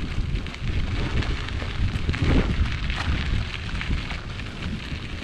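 Strong wind buffeting the microphone in uneven gusts, with a runner's footfalls ticking faintly through it.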